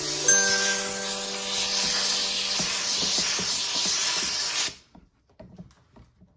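Kärcher steam cleaner blowing a jet of steam: a steady hiss that cuts off suddenly near the end, followed by a few faint taps.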